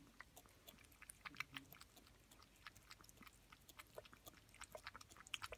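Faint, irregular wet mouth clicks of a cat drinking milk from the nipple of a small plastic feeding bottle, at a very low level.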